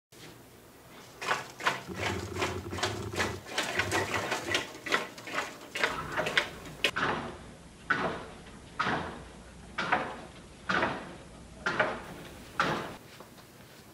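Plastic LEGO Technic feet of a gravity-driven passive walking linkage knocking on a sloping wooden board as it walks down. There is a fast, uneven clatter of footfalls for the first several seconds, then single knocks evenly spaced about a second apart.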